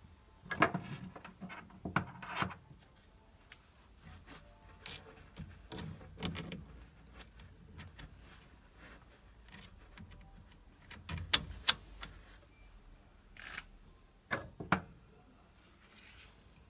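Scattered clicks, knocks and rubbing of tools and metal parts being handled while working on a combi boiler's pump, in short clusters with quiet between them.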